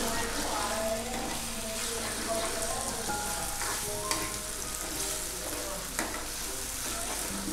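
Chopped tomatoes sizzling in hot ghee in an iron kadhai while a steel spoon stirs and scrapes them. There are two sharp taps of the spoon against the pan, about four and six seconds in.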